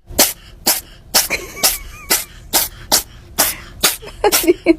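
A cat sneezing over and over in a fit, short sharp sneezes coming about twice a second, around ten in a row.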